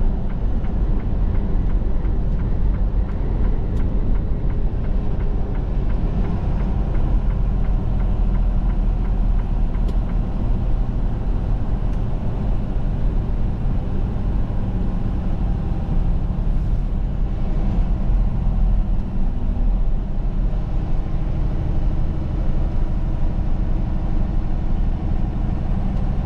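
Semi truck's diesel engine and road noise running steadily at highway speed, a continuous low rumble with a steady engine hum.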